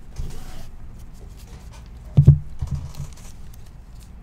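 Trading cards and pack wrappers rustling and scraping as they are handled, with small clicks and one loud dull thump on the table about two seconds in.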